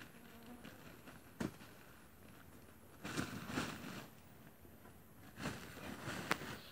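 Loose oil palm fruits being picked up by hand and dropped into a woven plastic sack, the sack rustling: a sharp tap about a second and a half in, then two bursts of rustling and handling around three and five and a half seconds in, the second ending in another sharp tap.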